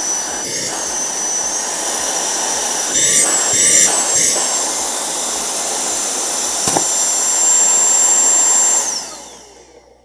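Aspiring Windstorm 1 cordless handheld car vacuum running: a high motor whine over a steady rush of air. About three seconds in, the whine wavers and dips a few times as the vacuum sucks up a plastic bag. Near the end the motor winds down and the whine falls away.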